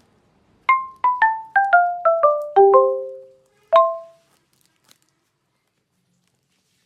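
Music: a short run of marimba-like mallet notes, about eight quick strokes falling step by step in pitch, then a single note about a second later.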